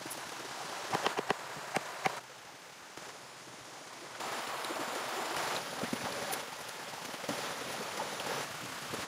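Steady rain falling in the forest, an even hiss that shifts in loudness abruptly twice. A few sharp taps or knocks sound in the first two seconds.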